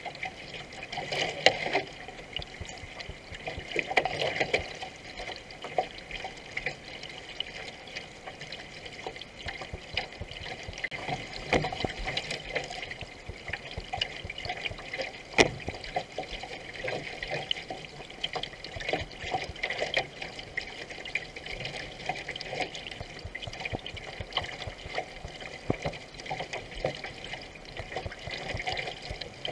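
Water rushing and splashing along a racing canoe's hull as it is paddled at speed, with irregular splashes from the paddle strokes.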